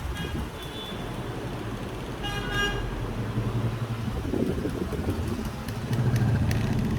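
Road traffic running with a low, steady rumble. A vehicle horn toots briefly a little over two seconds in, and a fainter horn-like tone sounds near the start.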